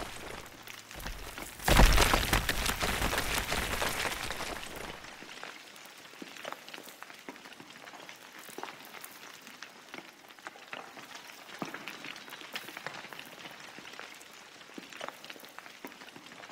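Loose rock and gravel kicked loose by fighting bighorn rams clattering and sliding down a steep slope, with one heavy knock about two seconds in. After about five seconds it thins to scattered ticks of small stones.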